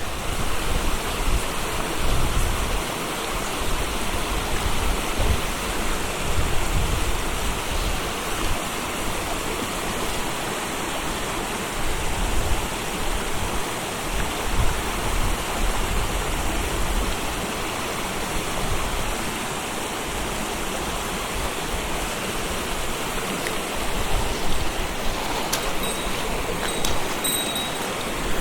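Steady rush of a river's current flowing over stones, with a fluctuating low rumble underneath and a few light clicks near the end.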